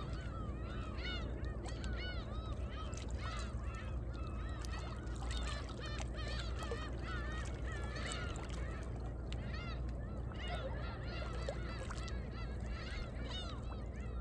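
A flock of birds calling continuously over one another in short, arched, honking calls, over the low steady wash of waves lapping among shoreline rocks.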